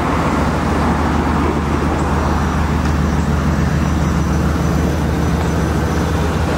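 Steady low drone of an idling vehicle engine, most likely the ice cream truck's, running evenly without changing pitch.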